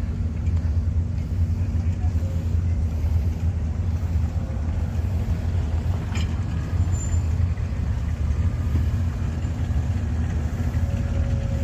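Rock River Cannonball train's locomotive running with a steady low drone as it backs slowly into its shed, with a single short clank about six seconds in.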